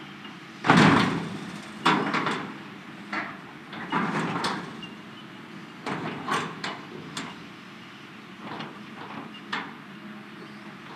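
Hitachi excavator's bucket banging and scraping against a steel shipping container, with irregular metal clanks and grinding, the loudest about a second in, over the excavator's engine running.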